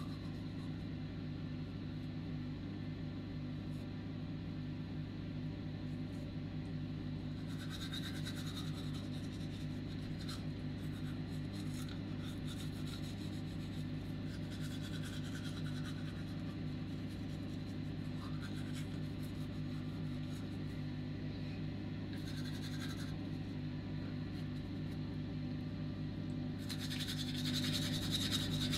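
A steady low mechanical hum, with brief scraping rustles now and then and a louder rustle near the end.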